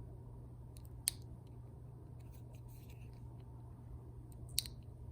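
Small sharp clicks of a tool on a smartwatch's internals as its tiny board connectors are pried off: two distinct clicks, about a second in and near the end, with a few fainter ticks between, over a low steady hum.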